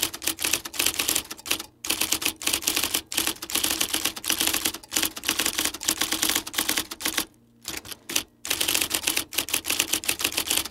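Typewriter keys clacking in rapid runs of keystrokes, with a few brief pauses. This is a typing sound effect matched to text appearing letter by letter.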